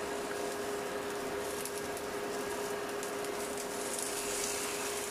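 Eggplant slices frying in oil in a pan, a soft, even sizzle, with a steady hum underneath.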